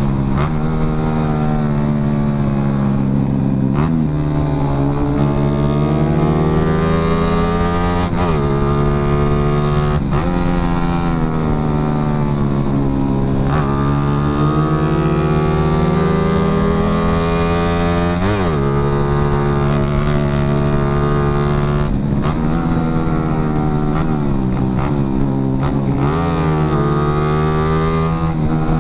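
Yamaha Jupiter Z underbone's single-cylinder four-stroke engine under way, pulling up through the revs and shifting gear: the note climbs and then drops sharply at each shift, about every four to five seconds. Wind rushes on the microphone throughout.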